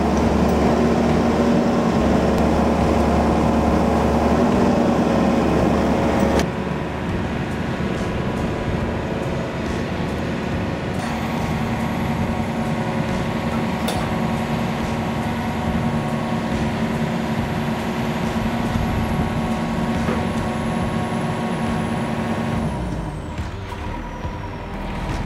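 Truck's diesel engine running steadily to drive a lorry-mounted crane's hydraulics while it lifts a strapped pack of timber, a steady hum with a whine. About six seconds in it drops to a quieter steady hum, and near the end the hum winds down in pitch.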